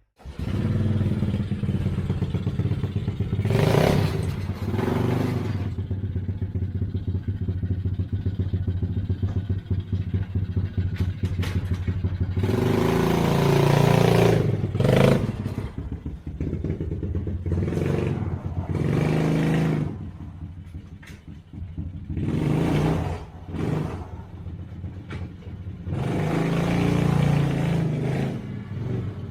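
Tao Tao T-Force 110cc ATV's four-stroke single-cylinder engine running, revved up several times and settling back between the revs.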